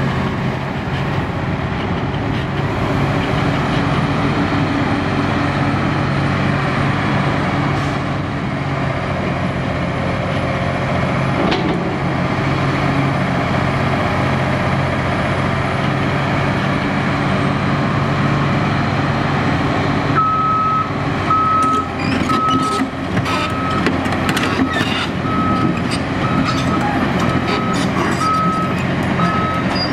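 Komatsu PC300LC-6 excavator's six-cylinder turbo diesel engine running steadily while the machine works. About two-thirds of the way through, its travel alarm starts beeping, about one and a half beeps a second, with metallic clanks from the machine for a few seconds after the beeping begins.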